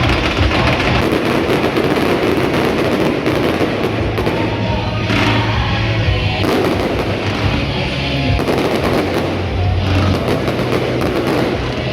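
Fireworks going off in rapid, overlapping bursts and crackles, many reports a second with no break, over music with a steady low bass.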